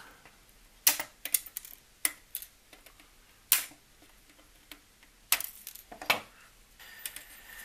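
Flush cutters snipping soldered component leads on a circuit board: a string of sharp, irregularly spaced clicks, the loudest about three and a half seconds in.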